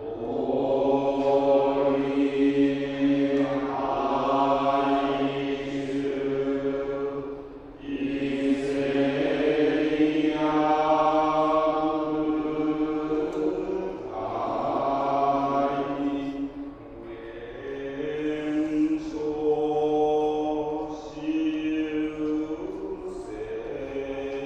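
Buddhist monks chanting: low voices hold long notes in slow phrases, with short breaks between phrases.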